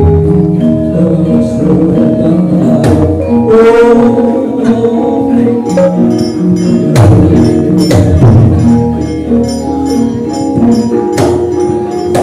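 Javanese gamelan ensemble playing, with layered ringing notes that change every half second or so and sharp percussive strikes a few times.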